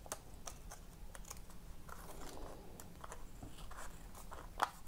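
Small scissors trimming the edge of a sheet of paper: a string of light, irregular snips as the outline is cut back a little at a time.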